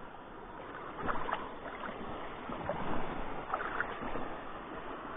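Water splashing in a shallow, running stream: several short, uneven splashes over the steady rush of the current.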